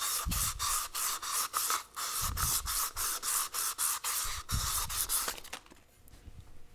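800-grit wet/dry sandpaper rubbed quickly back and forth around the steel synchronizer cone of a Muncie 4-speed transmission gear, a rapid rasping rhythm of three to four strokes a second, scuffing the cone clean. The sanding stops about five and a half seconds in.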